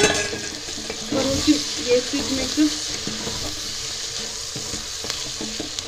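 Potatoes and peas sizzling with spice masala in an open pressure cooker, stirred with a wooden spoon that scrapes through them. There is one sharp knock at the very start.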